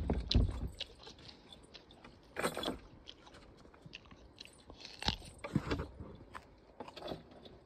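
Crisp apple being bitten and chewed close to the microphone: a few separate crunchy bites with pauses between, after two sharp knocks at the very start.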